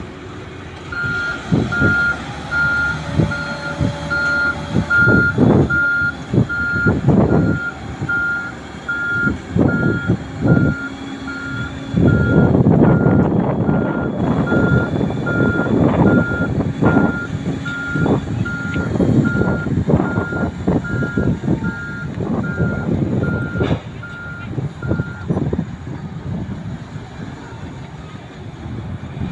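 Reversing alarm on heavy earthmoving machinery beeping steadily over the rumble of its running engine; the beeping stops a few seconds before the end.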